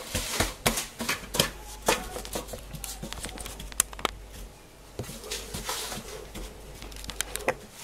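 Hands patting and pressing a buttered crushed-biscuit base into a metal baking tray: irregular light taps and clicks, quick and close together at first, then sparser.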